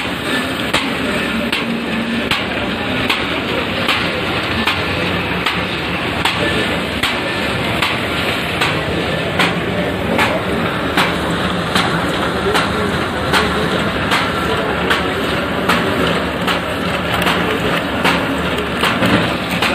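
Paper bag making machine running, with a steady mechanical clatter and a sharp, regular clack a little more than once a second as it cycles.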